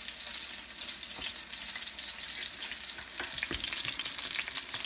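Halibut fillets frying in oil in a pan: a steady sizzle with fine crackling, and a few faint clicks.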